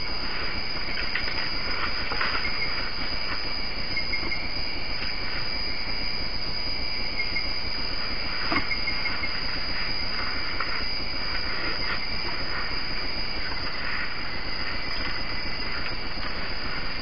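Steady night-time forest ambience picked up by a trail camera's microphone, an even hiss with faint higher streaks coming and going, and one short click about eight and a half seconds in.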